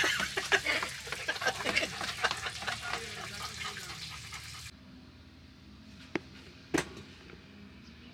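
Golden retriever panting close to the microphone, mixed with snatches of a man's voice. About four and a half seconds in, the sound drops to a quiet hush with two light clicks.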